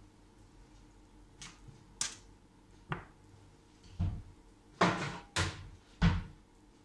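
Wooden kitchen cupboard door opening and shutting, and a plastic bowl knocking against others as it is taken out: a string of sharp knocks, the three loudest coming close together near the end.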